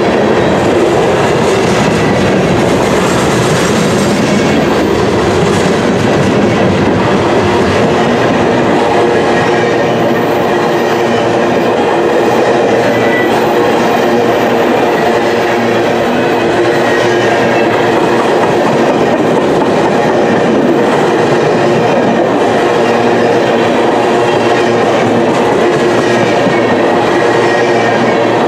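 Freight cars of a long train rolling past close by: steel wheels rumbling and clattering on the rails. The sound is loud and steady throughout.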